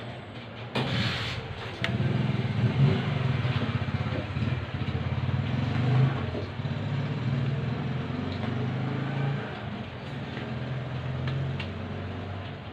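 A motor vehicle engine idling with a steady low rumble, starting about two seconds in, with a few faint small clicks.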